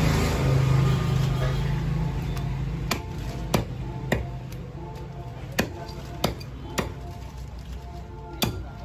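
Heavy cleaver chopping goat head meat and bone on a wooden log block: sharp, irregular blows about every half second to a second, starting about three seconds in, over background music.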